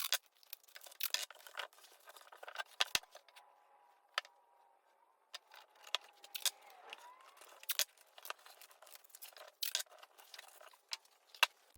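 Tape being pulled, torn and pressed on while a mitered plywood shelf is taped together: quiet, scattered clicks and crinkles, with a faint thin squeal for a few seconds midway.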